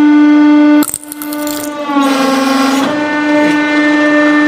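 Hydraulic press whining with a steady, reedy drone. There is a sharp click about a second in, and the pitch wavers briefly near the middle.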